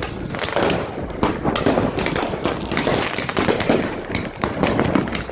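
Fireworks and firecrackers going off: a dense, rapid crackle of pops and bangs with no let-up.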